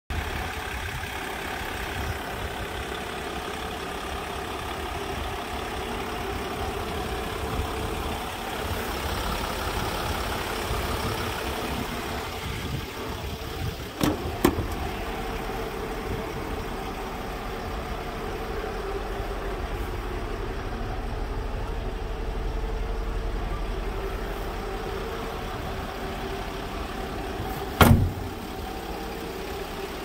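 Mercedes-Benz Sprinter 519 CDI's V6 diesel engine idling steadily. About halfway through the driver's door latch clicks open twice in quick succession, and near the end the door shuts with a sharp thud, the loudest sound.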